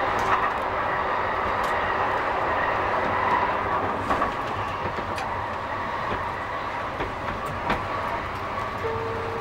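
A Calgary C-Train Siemens-Duewag U2 light rail car running along the track, heard from on board at the front. It gives a steady rumble of wheels on rail with a faint whine and scattered clicks over rail joints, and grows a little quieter about four seconds in.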